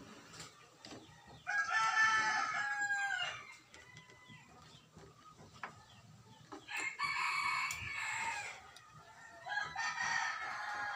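Rooster crowing three times, each crow about two seconds long.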